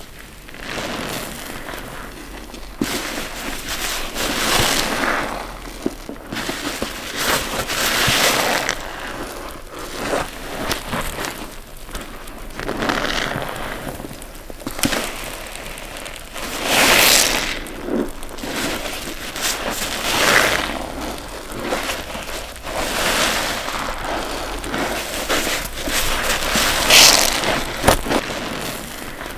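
Wet block sponges being squeezed over and over, squelching water out in a swell every few seconds.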